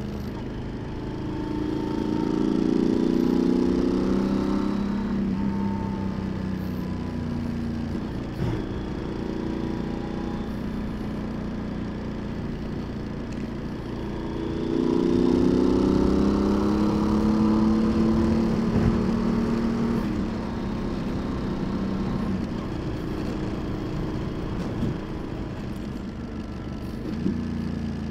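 Yamaha XT1200Z Super Ténéré's parallel-twin engine under way, rising in pitch and getting louder twice as the throttle is opened, about a second in and again around halfway, and running steadily in between.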